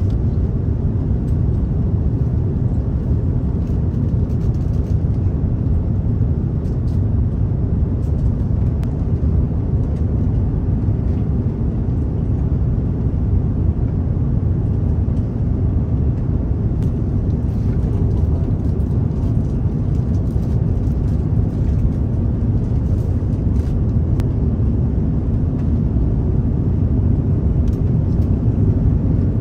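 Steady low rumble of an Airbus A330-900neo airliner heard from inside the cabin, holding an even level with no sudden changes.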